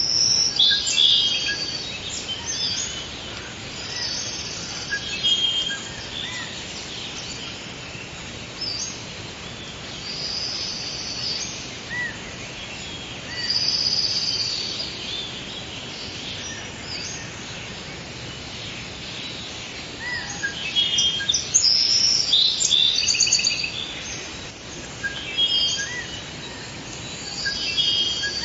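Forest ambience: several birds singing and chirping in short phrases every few seconds over a steady background hiss.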